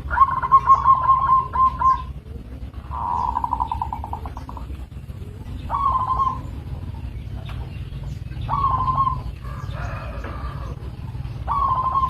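Zebra dove (perkutut) cooing: five trilled coo phrases, the first two about two seconds each and the later three shorter.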